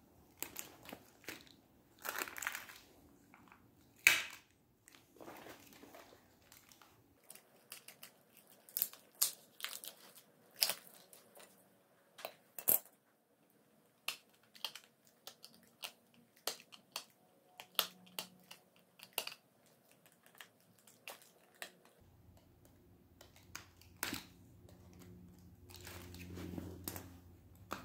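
Hands taking apart a pack of foil-wrapped lithium pouch cells: tape and foil crinkling, with scattered sharp clicks and snips as a cutter works at the tabs of one cell to disconnect it.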